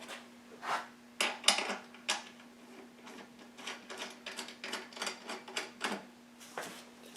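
Irregular light metallic clicks and clinks from small screws and parts being handled, the loudest in the first two seconds, over a faint steady hum.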